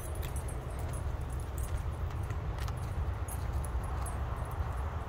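Walking along a leaf-covered dirt trail: a steady low wind rumble on the phone's microphone, with scattered light metallic jingles from a dog's collar tags and footsteps on the path.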